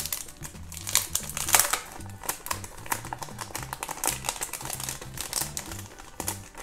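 Crinkling and crackling of a foil blind-bag pouch and a clear plastic wrapper being opened and handled, with many quick irregular crackles. Soft background music with a repeating bass line runs beneath.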